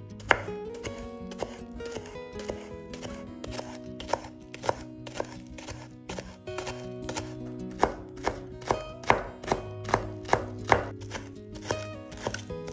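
Kitchen knife slicing a spring onion on a wooden cutting board, each cut ending in a sharp knock of the blade on the board. The cuts are scattered at first, then come in a quick, even run of about two or three a second over the second half, over soft background music.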